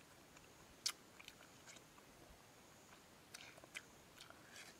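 Quiet close eating sounds of a sugar apple being chewed: a scatter of soft wet mouth clicks and smacks, the sharpest about a second in.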